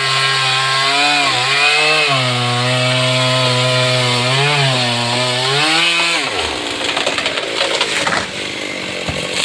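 Stihl MS382 two-stroke chainsaw running hard in a cut, its pitch sagging twice under load. About six seconds in the revs drop away and irregular crackling and rustling follow.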